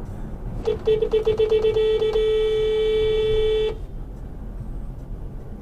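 Car horn sounding: a quick string of short honks, then one held honk of about a second and a half that cuts off sharply, over steady road rumble from a moving car.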